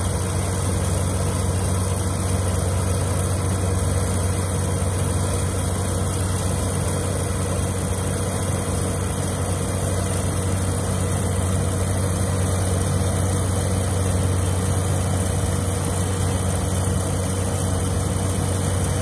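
Combine harvester running steadily while harvesting rice: a constant, unbroken engine hum.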